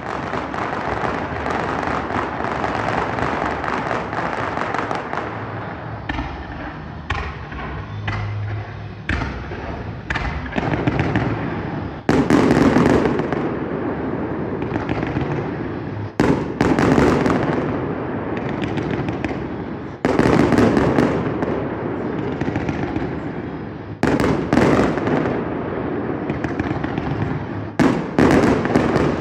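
Fireworks display: aerial shells bursting, with a crackle of many small pops in the first half. From about twelve seconds in come loud bangs roughly every four seconds, each followed by a long echoing rumble.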